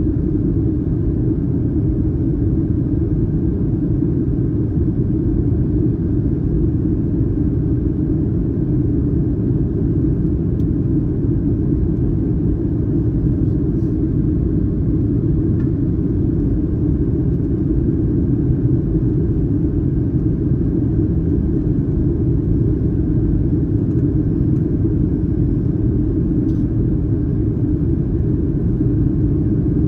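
Steady cabin roar of a Boeing 737-900ER in flight, heard from an economy seat aft of the wing: the noise of its CFM56-7B engines and the airflow, deep and even throughout.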